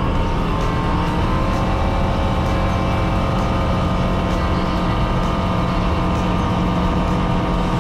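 Bristell light-sport aircraft's Rotax 912 flat-four engine and propeller at takeoff power during the takeoff roll, heard from inside the cockpit. The pitch rises a little in the first second or so, then holds steady.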